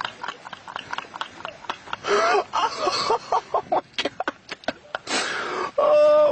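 A man laughing hard in quick breathy bursts, with squealing peaks. Near the end it turns into a long, wavering, drawn-out exclamation.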